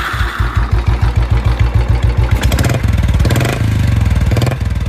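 Royal Enfield Bullet Classic single-cylinder engine running through a loud aftermarket exhaust, idling with a rapid, even thump. It is revved twice around the middle, then drops back to idle near the end.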